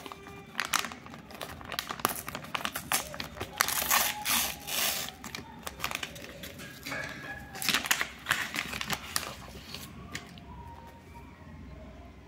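A Flipkart courier mailer pouch crinkling and tearing as it is pulled open by hand, in loud bursts that die down near the end.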